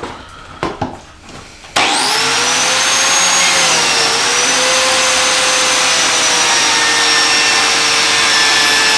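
Einhell TC-BJ 900 biscuit joiner switched on about two seconds in, its motor running with a steady whine as it is pushed along a board to cut a groove. The pitch sags briefly about four seconds in. A few light handling clicks come before it starts.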